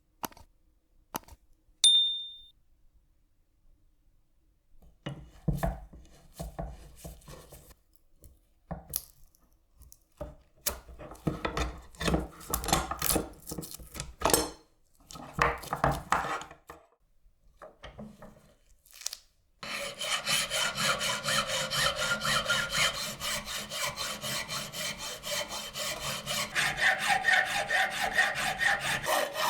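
Hand abrasive work on a knife, filing or sanding by hand. A few light clicks and a short metallic ping come about two seconds in, then irregular rubbing strokes. From about twenty seconds in there is a fast, steady back-and-forth rasping.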